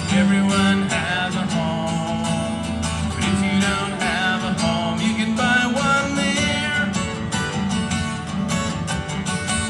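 Live music: an instrumental passage of a folk-rock song with guitar prominent and no vocals.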